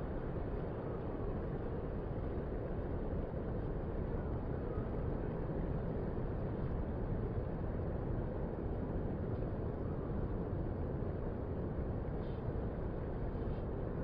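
Steady low rumble of distant ocean surf breaking on a beach, even in level with no single wave standing out.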